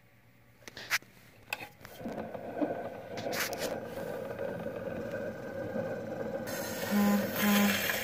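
Clicks as the gramophone needle is handled and set down on a spinning shellac 78 rpm Victor record, then the needle running in the lead-in groove with steady surface hiss and crackle. Two short low notes of the recording sound near the end.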